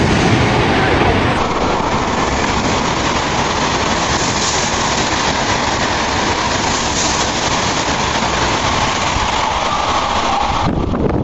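Shinkansen bullet train passing through a station at high speed: a loud, steady rush of air and wheel noise.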